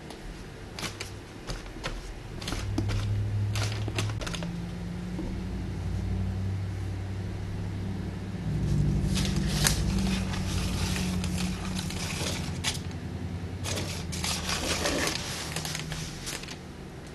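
A flat paint stick tapping and scraping across a wet acrylic-coated canvas as the paint is spread out, with a few sharp clicks early and longer scrapes about nine seconds in and again near the end. A low hum runs under most of it.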